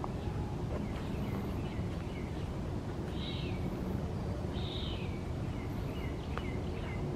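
Birds calling in woodland, with two clearer calls about three and four and a half seconds in and a few short chirps, over a steady low rumble of background noise.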